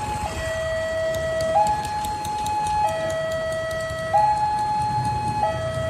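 Railway level-crossing warning alarm sounding a two-tone signal, a low and a high tone taking turns about every second and a half, over the low rumble of idling traffic.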